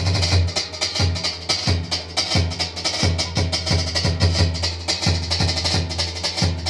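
Instrumental dance music with a steady, driving drum beat and a low bass note repeating about every two-thirds of a second.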